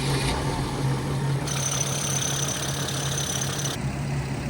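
Mercedes Sprinter van's diesel engine running with a steady low hum; a higher hiss joins for about two seconds in the middle.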